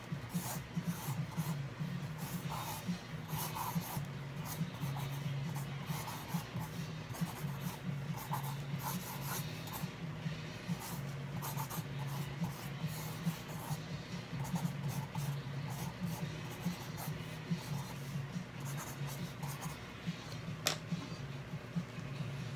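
Graphite pencil scratching across paper in quick, irregular sketching strokes, over a steady low hum. A single sharp tap near the end.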